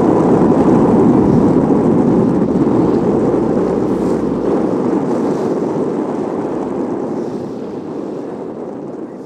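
Steady rush of wind and choppy sea water, fading away over the last few seconds.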